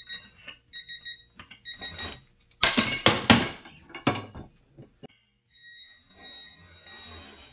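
A digital torque meter gives short electronic beeps as torque builds on a DeWalt 3/8-inch drive ratchet. Then the ratchet gives way under the cheater pipe at about 270.9 ft-lbs with several loud metal cracks and clatter, a sharp knock follows a second later, and the beeping starts again near the end.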